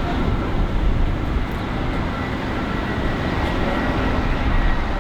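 Jet airliner's engines: a steady, loud rushing noise with a faint, steady high whine over it.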